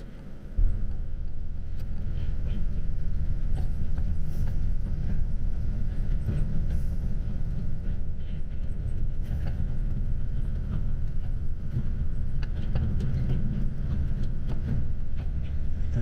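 Road noise inside a moving coach bus: a steady low rumble of engine and tyres, which drops away for a moment at the very start.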